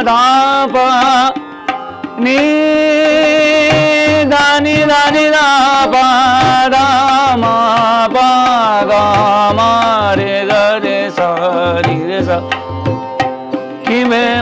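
Live Indian-style music: a man sings long, ornamented notes that slide between pitches, accompanied by tabla and a plucked stringed lute. The singing breaks off briefly about a second and a half in, then carries on.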